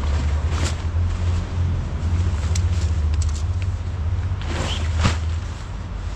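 Steady low rumble of a large vehicle's engine, with a few brief rustles and clicks over it.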